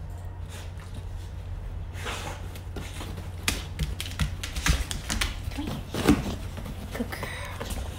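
A dog moving about on a fabric dog bed close to the microphone: irregular taps, scuffs and rustles, sparse at first and busier from a few seconds in, over a steady low hum.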